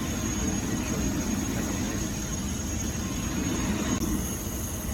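Steady low rumble of jet aircraft engines, with a thin, constant high whine above it.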